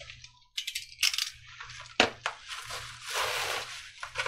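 Plastic bubble wrap crinkling and rustling as it is pulled off a box by hand, with sharp crackles about one and two seconds in.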